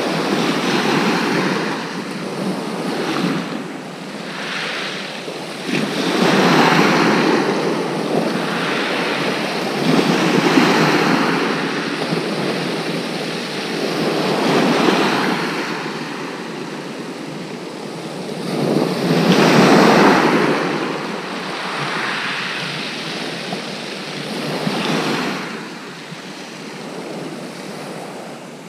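Small waves breaking on a pebble beach, the rush of surf swelling and fading every few seconds. The loudest wave comes about two-thirds of the way through.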